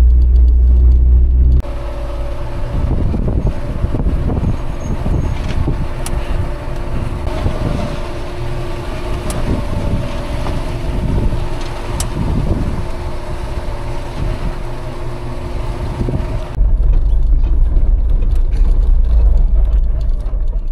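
Toyota pickup truck driving slowly along a rocky dirt trail: the engine runs steadily while the tyres crunch and crackle over dirt and stones. A heavy low rumble dominates for about the first second and a half and again for the last few seconds.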